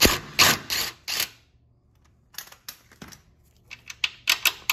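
Ratchet wrench with a 13 mm socket loosening the engine ground strap nut: a few quick ratcheting strokes, then a short pause and a run of lighter, irregular metal clicks.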